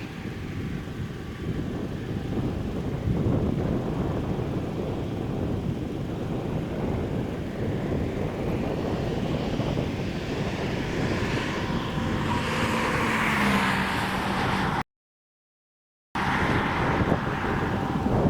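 Strong wind rumbling and buffeting the microphone in a steady, low roar, with the sound cutting out completely for about a second near the end.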